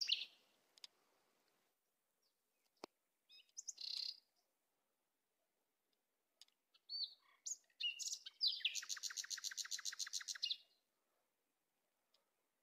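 Songbird singing: scattered high chirps and short phrases, then about eight seconds in a rapid trill of about ten notes a second that lasts some two seconds.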